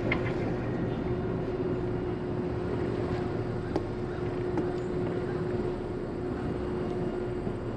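A motor yacht's engines running steadily at slow speed: an even drone with a constant hum, with a couple of faint clicks.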